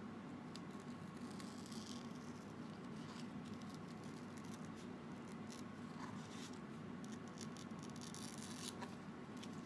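A banana leaf being cut and handled: faint scratching and rustling with scattered small clicks, over a steady low hum.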